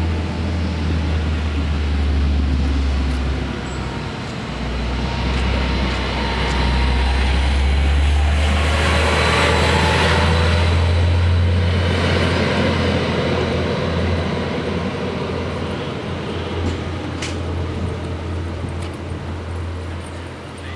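Arriva GTW diesel multiple unit passing over the level crossing: a low rumble with wheel and rail noise that builds to a peak about ten seconds in, as the central diesel power module goes by, then fades.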